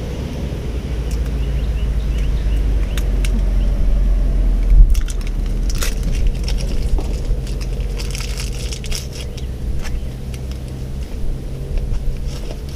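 Box cutter slicing through a rubber seal strip in short scraping cuts with scattered clicks. Underneath runs a low rumble that swells to a peak about five seconds in.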